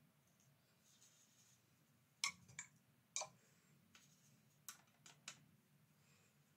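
Several light clicks and taps, about six in two quick groups, from pen, brush and paint palette being handled on a tabletop.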